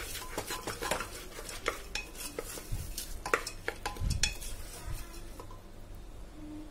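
Wooden slotted spatula stirring and scraping red lentils (masoor dal) against the sides and bottom of a pressure cooker as they are dry-roasted in a little oil: a run of irregular clicks and scrapes that thin out near the end.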